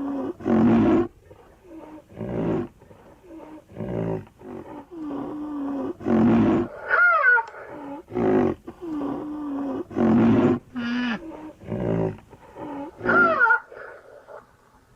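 Rhinoceros calls: a run of short, low, pitched calls about one to two seconds apart, with two higher, wavering squeals about seven and thirteen seconds in.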